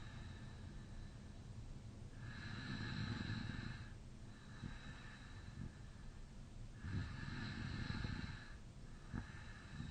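A man snoring in deep sleep with his mouth slightly open: two long, deep snoring breaths about four and a half seconds apart, with quieter breathing between them.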